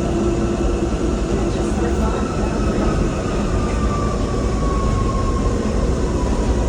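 Jacksonville Skyway monorail car running, heard from inside the cabin: a steady low rumble with a thin whine that slowly falls in pitch.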